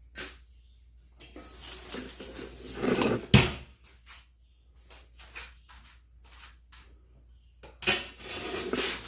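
An old air compressor hose and its metal fittings being handled and pulled loose: rustling and clinking, with one sharp knock a little over three seconds in, scattered small clicks after it, and more rustling near the end.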